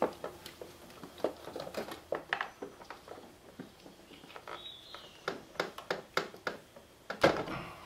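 Irregular plastic clicks and scratchy rustling as fingers work a small hose connector loose in a car's engine bay, with one louder clack near the end.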